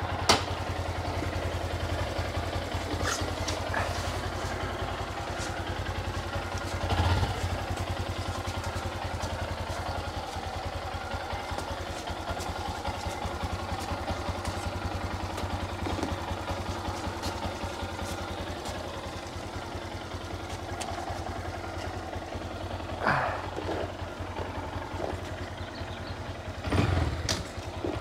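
Honda Grom's small single-cylinder four-stroke engine running steadily at low revs, with brief louder swells about seven seconds in and again near the end.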